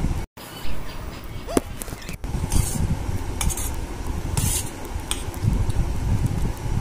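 Cutlery clinking and scraping against a plate during a meal of spicy noodles, with a few short hissy sounds in the middle and a brief dropout near the start.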